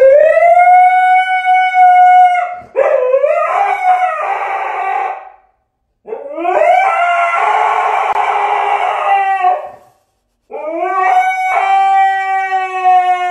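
Husky howling: four long, drawn-out howls, each rising at the start and then held, with short breaks between them; the second and third are rougher.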